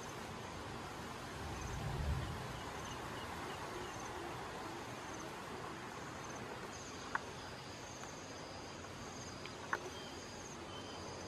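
Insects chirping in short, high trills that repeat about once a second and grow fuller in the second half, over a steady hiss. A low thump comes about two seconds in, and two sharp clicks near the end.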